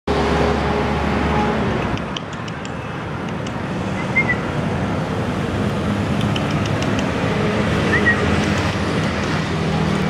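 Street traffic running steadily, with a vehicle engine prominent in the first second and a half. Two short high whistled chirps come about four and eight seconds in, with faint clicks between.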